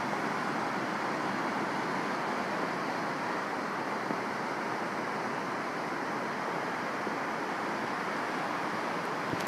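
Steady wash of surf breaking at the shoreline, with wind on the microphone.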